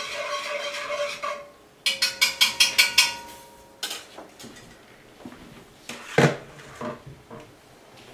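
A spoon scraping and stirring in a large metal stockpot of dissolved soap solution being mixed to cool it, then a quick run of about seven ringing taps on the pot, followed by scattered clinks and a thump as things are moved on the counter.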